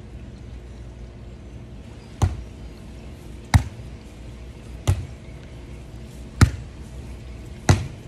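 A volleyball being hit up again and again by one player passing to herself: five sharp smacks, about one every 1.3 seconds, the first about two seconds in.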